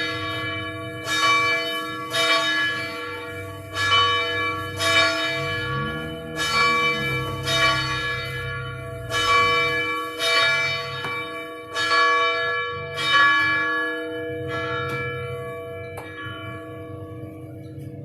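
Church bell ringing, struck about once a second. The strokes stop about 14 seconds in and the ring fades away.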